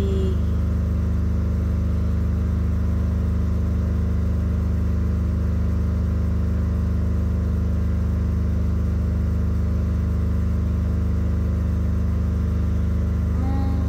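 A steady low mechanical hum that stays the same in pitch and level.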